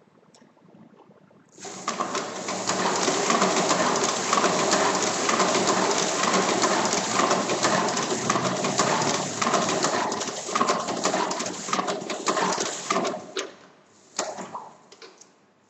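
Hand-cranked 1950s Rotafix 88 stencil duplicator running: a loud, dense mechanical clatter of many rapid ticks that starts abruptly about two seconds in and stops about two seconds before the end, followed by a few separate clicks.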